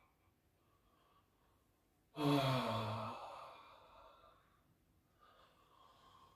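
A man's long voiced sigh on the out-breath, starting about two seconds in, falling slightly in pitch and fading into breath. Near the end there is a faint breath.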